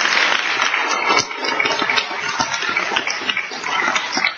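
Audience applauding, many hands clapping together, thinning out near the end.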